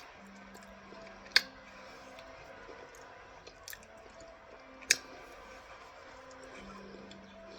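A person eating chunks of cornstarch: two sharp, loud crunching bites about three and a half seconds apart, with soft chewing between them.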